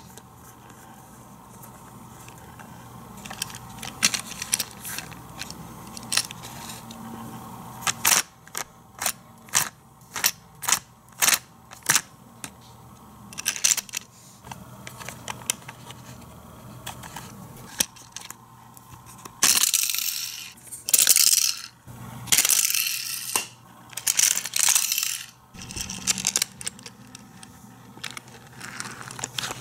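Plastic toy car wash playset being worked by hand: a run of sharp plastic clicks, then louder rattling and scraping bursts as its parts and a die-cast toy car move through it.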